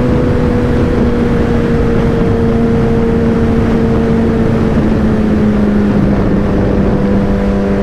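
Sportbike engine running at a steady cruise with wind rushing past, the engine note sinking slightly as the bike eases off. Near the end the note drops lower and turns richer.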